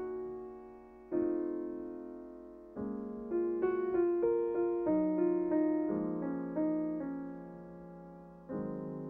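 Solo piano music: slow struck chords and a gentle melody, each note left to ring and fade.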